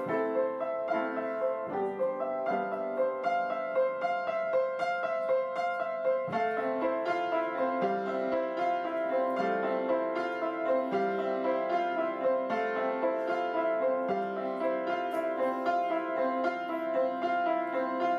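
Piano music, a run of quick notes moving steadily along without pause.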